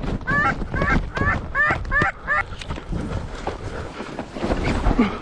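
Canada geese honking, a quick series of about seven honks in the first couple of seconds that then stops, over a low wind rumble on the microphone.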